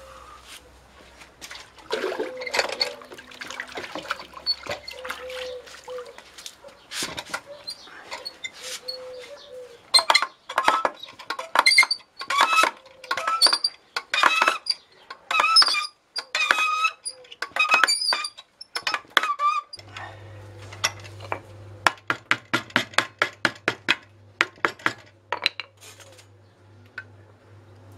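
Metal-on-metal clinks and taps from steel tools and a steel barrel-making jig worked against the hoops of a small wooden barrel. Each strike rings briefly and brightly, and they come in a quick run through the middle. Later there is a steady low hum under lighter clicks.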